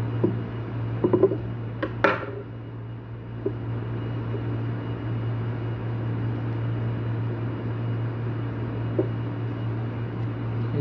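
Steady low machine hum, with a few scattered knocks and clicks of small metal parts being handled, the loudest about two seconds in.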